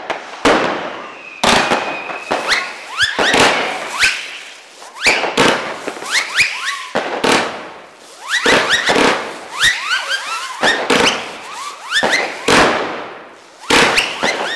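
Lesli/Röder Moskitoschwarm 50-shot fireworks battery firing five hummers at once per volley. Each volley is a sharp launch bang followed by the rising, wavering whine of the spinning hummers, and the volleys repeat every second or so.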